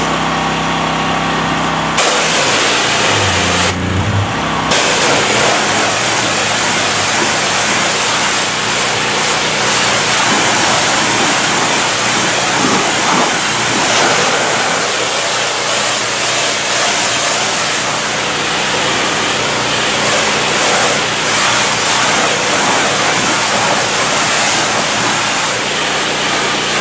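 Hot Boss 4000 PSI hot-water pressure washer running steadily, its engine hum under the loud hiss of the high-pressure hot-water jet striking the front of a travel trailer. The spray hiss starts about two seconds in and carries on.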